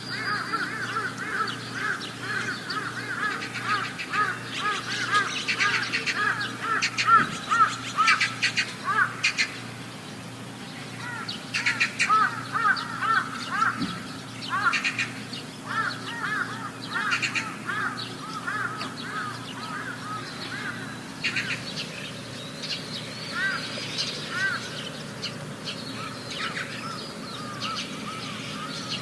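Animal calls: rapid runs of short, high chirping calls, densest in the first few seconds, sparser later, with scattered sharp clicks among them and a faint steady low hum underneath.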